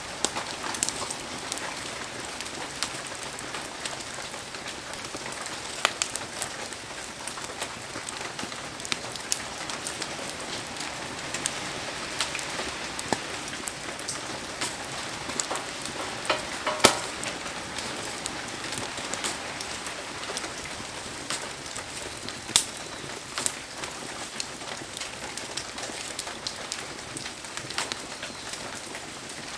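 Heavy rain hissing steadily around a wood campfire, with scattered sharp pops and crackles. The two loudest pops come about 17 and 22 seconds in.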